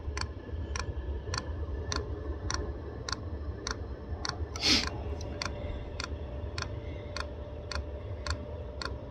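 Fuel dosing pump of an 8 kW diesel air heater clicking steadily, a little under two clicks a second, as it pumps diesel through fuel lines that still need priming. A steady low hum runs underneath, and a short breathy hiss comes about halfway through.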